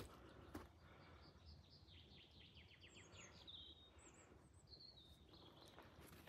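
A songbird singing faintly: a quick run of notes stepping down in pitch, ending in a short flourish, then a few higher chirps. A single footstep sounds just before the song.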